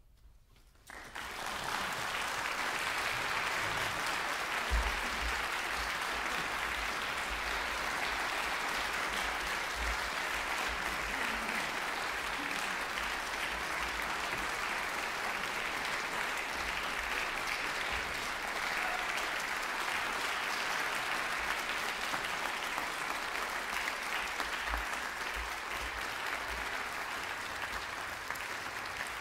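Audience applauding, breaking out about a second in and going on steadily, easing slightly near the end.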